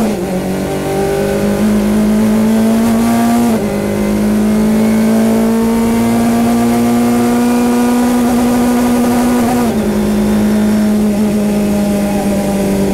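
Elan NP01 prototype race car's Mazda four-cylinder engine at full throttle, heard from inside the cockpit. The engine note stays nearly level and drops sharply at each of three upshifts: at the start, after about three and a half seconds, and near ten seconds. Near the end it is held on the rev limiter.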